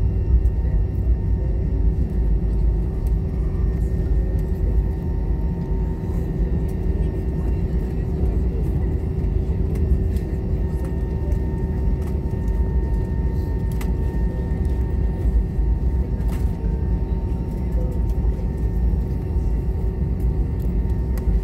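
Cabin noise of an Airbus A320 taxiing: a steady low rumble from the idling engines and the rolling airframe, with a few steady whining tones over it.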